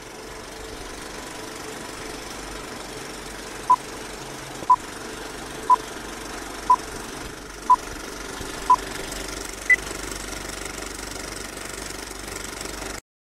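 Vintage film countdown-leader sound effect: an old movie projector running with a steady clatter and film crackle, with six short beeps one second apart starting about four seconds in, then a single higher-pitched beep. The noise cuts off suddenly near the end.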